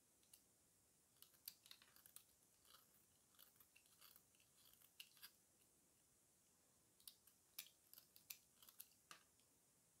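Snap-off utility knife blade cutting into a piece of dry soap, giving quiet crisp crunching and scraping clicks. The cuts come in two runs with a pause about halfway.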